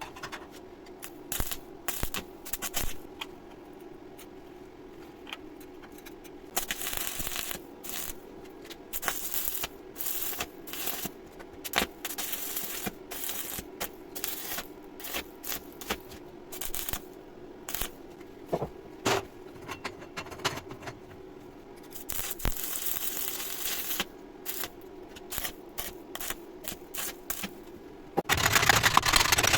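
Stick (arc) welding on square steel tube: the arc crackles and sizzles in stretches of several seconds, broken by sharp ticks, over a steady hum from the welding machine. It gets markedly louder near the end.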